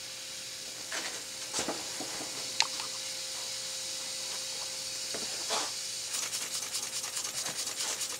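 Robert Fulton vertical toy steam engine under live steam: a steady hiss of steam escaping from small leaks at the whistle and the cylinder packing, with a few light clicks and knocks. From about six seconds in, a rapid regular chuffing of about five beats a second joins it as the little engine runs.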